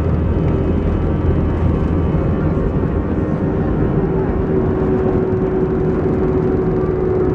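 Airbus A321 jet engines at take-off thrust during the take-off roll, heard from inside the cabin over the wing: loud, steady engine noise with runway rumble underneath. A steady whine grows stronger about halfway through.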